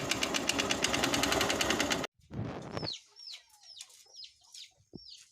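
Honda CB Shine 125's single-cylinder engine running with a loud, rapid, rhythmic knocking, the engine noise the video sets out to cure (put down to the piston). It cuts off suddenly about two seconds in, and a bird then calls in short, repeated falling chirps.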